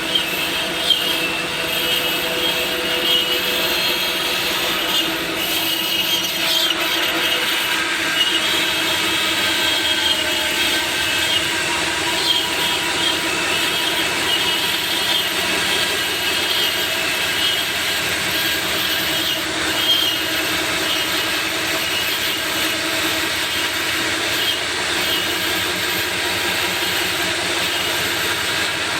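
CNC machine cutting: a steady, noisy run with high, wavering whining tones from the cutting tool.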